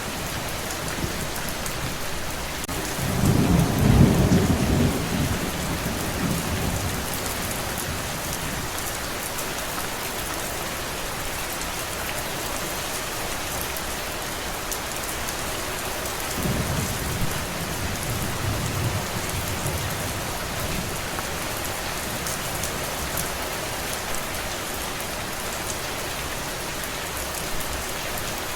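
Steady heavy rain hissing, with thunder rumbling twice: a louder roll about three seconds in, lasting a few seconds, and a softer one past the middle.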